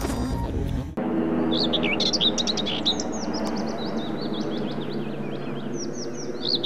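A short music sting cuts off abruptly about a second in. Then many small birds chirp and twitter continuously over a steady background hum of outdoor ambience.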